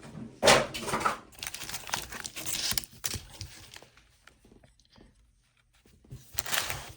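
Packaging of a Pokémon card binder collection box being handled, with tearing and crinkling in the first few seconds and again near the end, quiet in between.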